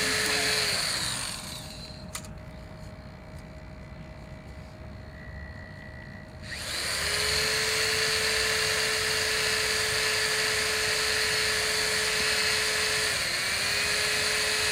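Power drill running with its bit pressed against a painted rock: a steady motor whine that winds down about a second in, stops for several seconds, then spins up again about halfway through and runs steadily, with a brief slowdown near the end.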